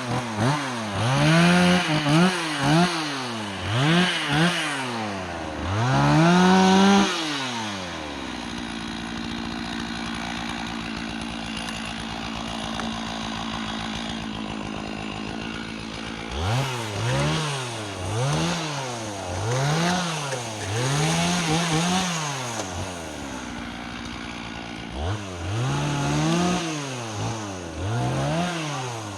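Two-stroke engine of a Stihl chainsaw with a 36-inch bar, revved up and down in quick bursts about once a second. It settles to a steady idle for several seconds from about eight seconds in, then revs in bursts again.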